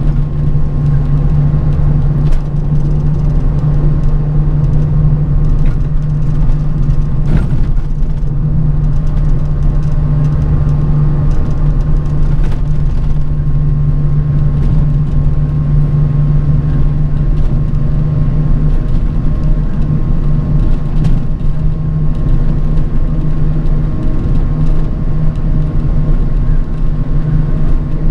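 A bus on the move: a steady low drone of engine and road noise, with a faint steady whine above it and a few faint clicks.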